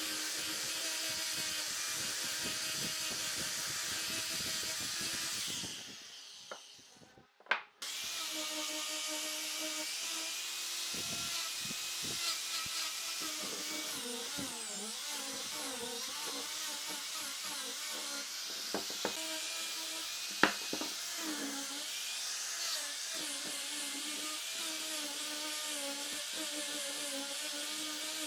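Electric power tool working wood, running with a steady hum and hiss that wavers a little as it is worked. About six seconds in it dies away, with a sharp click, then starts again shortly after, with a few sharp knocks later on.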